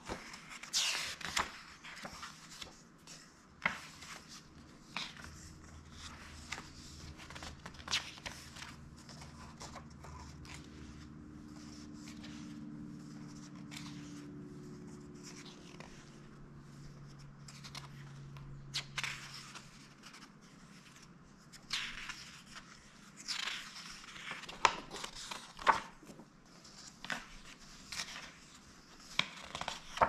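Pages of a large paperback book being turned by hand, the paper swishing and flapping in quick flurries of flips, with a run of several in a row near the end. A faint low hum sits underneath through the middle.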